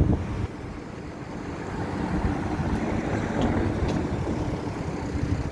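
Outdoor street noise with wind rumbling on the microphone and passing traffic. The rumble drops off about half a second in, then swells again.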